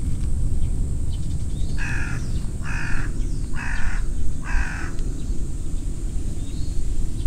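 A crow cawing four times in an even series, each caw about half a second long, over a steady low rumble.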